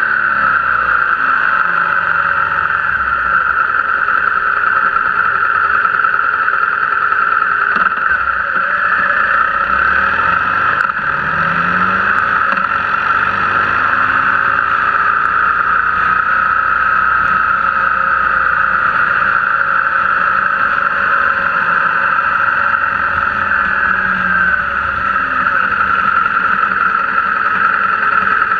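BMW R1200GS boxer-twin motorcycle engine running on the move, heard from a camera mounted beside its pannier, with steady wind and road noise over it. The engine pitch slowly rises and falls as the revs change.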